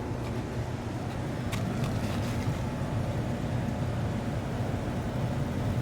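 York packaged rooftop unit running with its second compressor stage on: a steady machine hum under an even rush of air.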